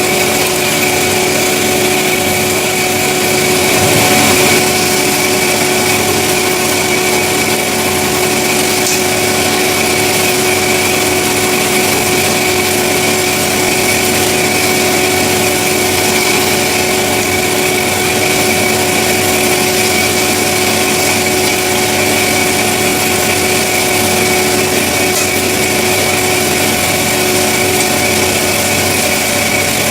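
CORMAK S-200R semi-automatic metal-cutting band saw running with a steady machine hum and whine.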